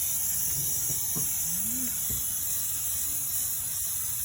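Aerosol can of synthetic chain lube spraying in a steady hiss onto a motorcycle drive chain as the wheel is turned.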